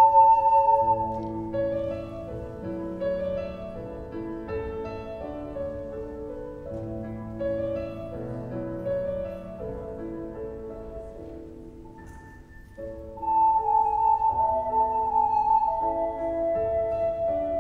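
Ocarina melody that stops just after the start, leaving a quieter piano-like instrumental accompaniment of chords and notes for an interlude; the ocarina comes back in, loud and held, about thirteen seconds in.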